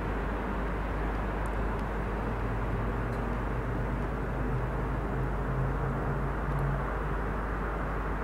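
Steady low mechanical rumble, with a faint low hum that rises out of it from about two seconds in and fades near the end.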